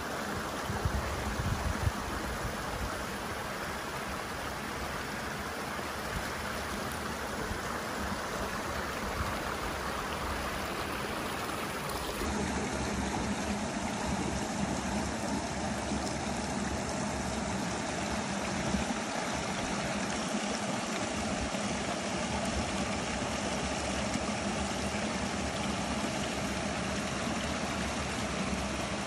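Small mountain creek running over boulders and stones: a steady rush of flowing water, somewhat louder from about twelve seconds in.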